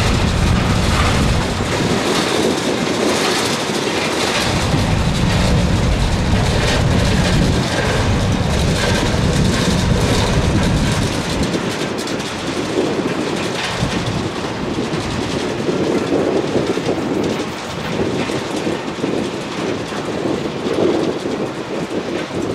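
Freight train of covered hopper cars rolling past, steel wheels clattering over the rail joints in a running clickety-clack.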